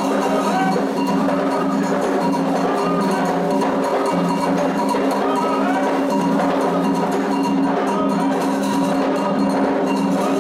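Candomblé toque for Logun Edé: atabaque drums played with a ringing agogô bell, in a dense, steady rhythm.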